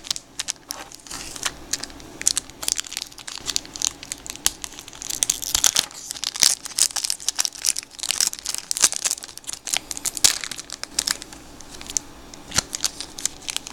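The foil wrapper of a 1992 Donruss baseball card pack crinkling and tearing as it is picked from a stack and ripped open by hand, in irregular bursts of crackle that are busiest in the middle.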